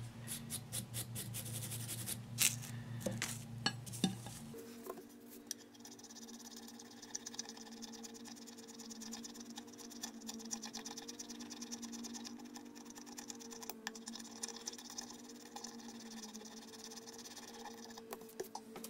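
A wire brush scraping a small metal file clean, a quick run of scratches lasting about four seconds. Then the file rasps a cured Milliput epoxy-putty fill on a chipped ceramic plate rim in fast, short, even strokes, faint over a steady low hum.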